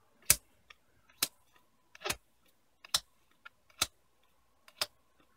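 Pokémon trading cards being handled one at a time, each sliding off the stack or being snapped onto the playmat with a sharp click, about once a second, six times.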